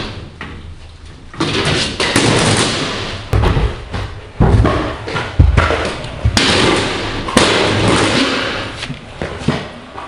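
Kick scooter riding a plywood quarter pipe: its hard wheels roll with a rushing noise, broken by repeated loud thuds about every one to two seconds as the deck and wheels land and hit the ramp and floor.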